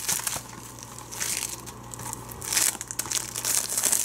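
Clear plastic shrink-wrap crinkling as it is peeled off a Blu-ray case and crumpled in the hand, in several rustling bursts.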